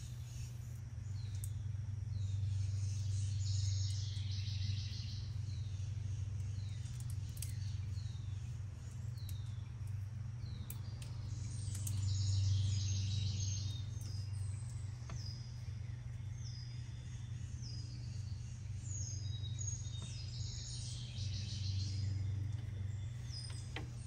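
Birds calling: a run of short down-slurred chirps repeated every second or so, with a few buzzy trills, over a steady low hum.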